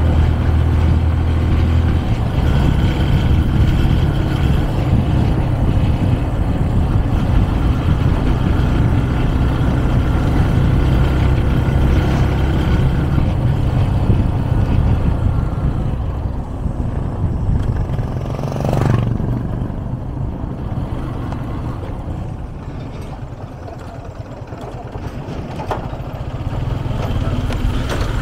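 Motorcycle engine running at riding speed, with wind and road noise. It drops quieter for several seconds past the middle, then picks up again near the end.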